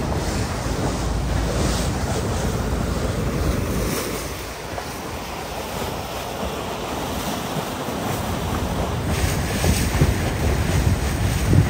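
Wind buffeting the microphone and water rushing and splashing past a boat under way. The wind rumble eases about halfway through, then picks up again near the end.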